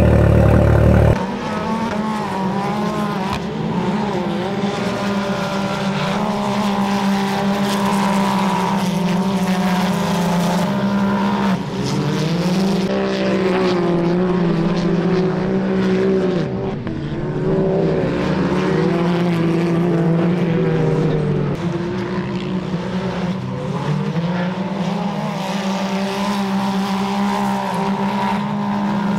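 Side-by-side (UTV) race cars' engines revving up and down as they race on a dirt short course, several engines overlapping. In the first second a lower, steadier engine runs before the racing engines take over.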